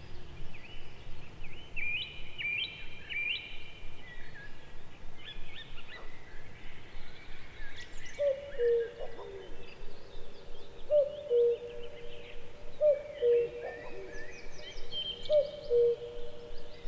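Common cuckoo calling its two-note 'cu-coo', the second note lower, repeated about four times from about eight seconds in. Other songbirds chirp and trill at a higher pitch throughout.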